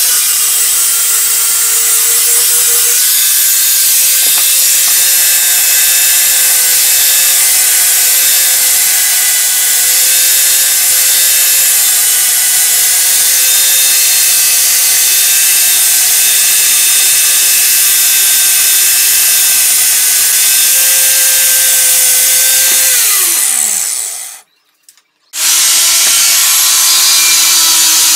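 Angle grinder with an abrasive disc grinding the steel blade of an old butcher knife: a steady motor whine over the hiss of the disc on metal. Near the end the motor winds down with a falling pitch, stops briefly, then runs again at a lower pitch.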